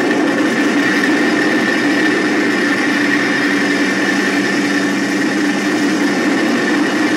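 Little Bird helicopter running steadily, heard from on board: a constant high whine over loud, even engine and rotor noise.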